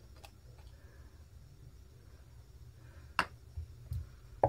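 Small plastic clicks and taps from handling a squeeze bottle of glitter glue and unscrewing its cap, with a sharp click about three seconds in, a couple of softer knocks, and another sharp click at the end.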